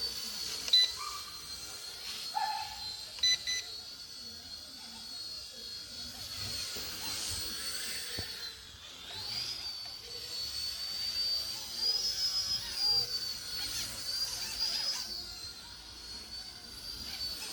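Twister Ninja 250 micro RC helicopter flying, its electric motor and rotor giving a high whine that rises and falls as the throttle changes. A few short beeps sound in the first few seconds, typical of transmitter trim adjustments.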